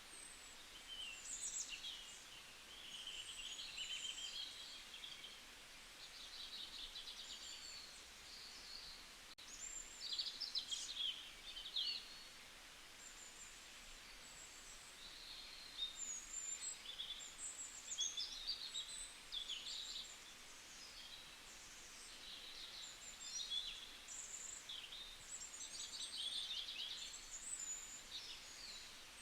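Forest ambience with several birds singing and calling at once: many short, high chirps and trills that overlap and come and go.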